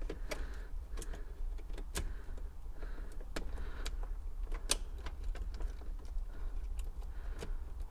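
Scattered sharp clicks and light knocks from a key being turned in an ignition lock cylinder and the cylinder being worked into the steering column; the key will not pull out of the cylinder. A steady low hum runs underneath.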